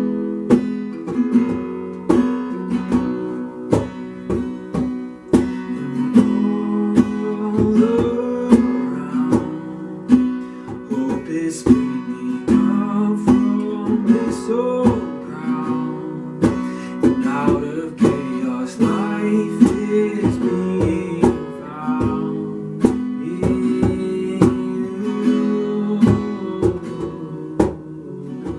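A worship song: steadily strummed acoustic guitar, with a voice singing over it for stretches.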